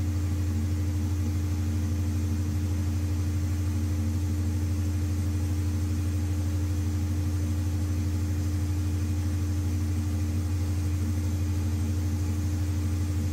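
Large natural gas generator engine running steadily: a deep, even drone with a constant higher hum over it.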